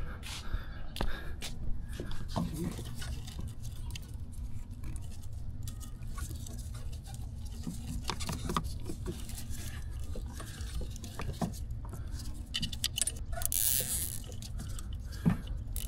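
Plastic wiring harness and loom being handled, with scattered small clicks and rustles, and a nylon zip tie ratcheted tight about three-quarters of the way through.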